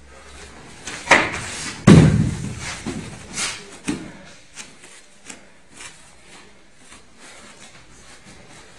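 A jiu-jitsu throw: a sharp smack about a second in, then, about two seconds in, a heavy thud as a body lands on the training mats, the loudest sound here. Lighter thuds and faint taps of bare feet and gi follow.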